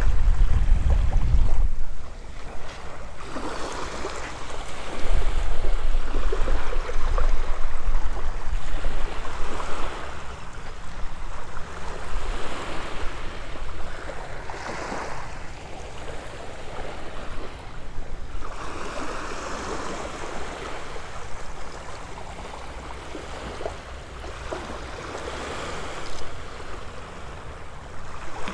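Small waves washing up on a sandy shore, swelling and fading every few seconds. Wind buffets the microphone in the first two seconds and again about five to eight seconds in.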